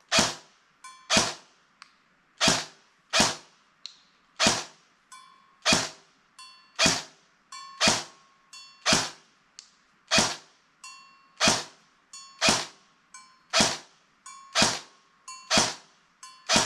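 Barra 400E electric BB gun firing a long string of single shots, about one and a half a second, each a sharp crack with a short echo. A faint ringing tone follows some of the shots.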